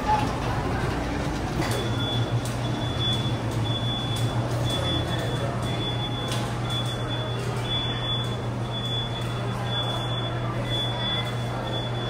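Steady low rumble aboard the Walt Disney World Railroad steam train, with occasional clicks. From about two seconds in, a short high beeping tone repeats about twice a second.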